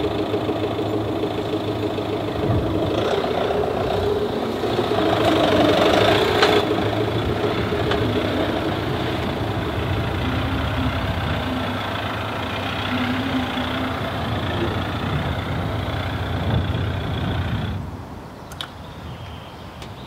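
Engine of a Fiat Ducato-based motorhome running as it drives slowly, swelling briefly about five seconds in, then falling away near the end.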